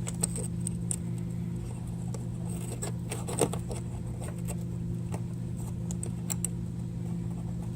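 Scattered light clicks and taps of small metal parts being handled as an oil separator can is lined up on its mounting bracket and its mounting screws are started, with one sharper click about three and a half seconds in. A steady low hum runs underneath.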